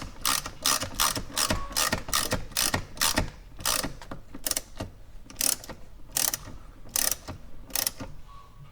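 Ratchet wrench with a Torx T45 bit clicking in quick repeated strokes, tightening the bolt of a Tesla seatbelt height adjuster. The strokes slow to about one a second near the end.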